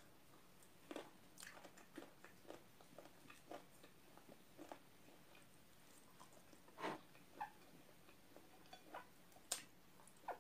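Close-up eating sounds of breaded fried chicken being bitten and chewed: faint, irregular crunches and mouth clicks. A louder crunch comes about seven seconds in and a sharp click about nine and a half seconds in.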